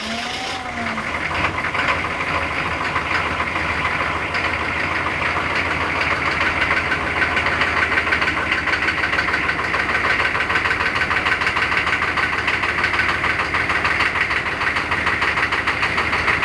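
GM diesel V8 in a Chevy Suburban idling with a steady diesel clatter just after starting, running a little louder in the first couple of seconds.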